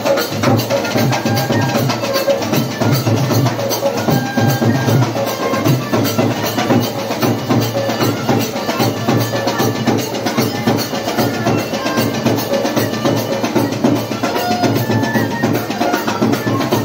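Live folk drumming accompanying a Badaga circle dance: hand drums beating a fast, steady rhythm, with short pitched notes from another instrument over the beat.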